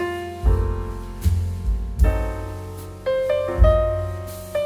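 Background piano music: single struck notes that ring and fade, over low bass notes.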